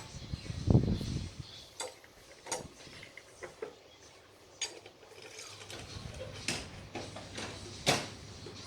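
Hand tools clicking and clinking on metal engine parts as bolts are fitted during assembly of a Honda Supra motorcycle engine, with scattered sharp clicks and one louder dull knock about a second in.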